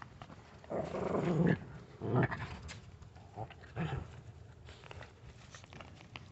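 Puppy growling in a few short, rough bursts, the longest and loudest about a second in, then shorter ones around two and four seconds in.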